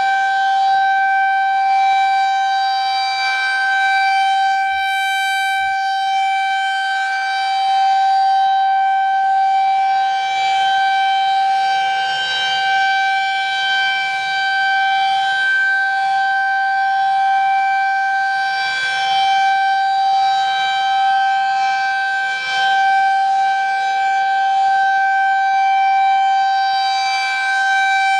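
Federal Signal 2001-SRN electronic warning siren sounding a steady alert tone for its monthly test. The pitch holds constant while the loudness swells and fades slowly as the rotating speaker head turns.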